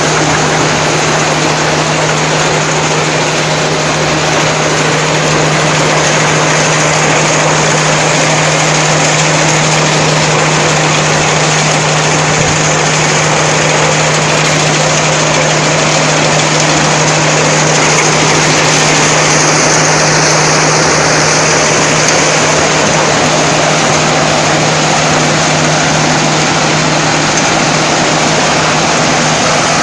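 Corn harvesting machine running steadily: a constant low engine drone under a loud, even rushing noise that does not let up.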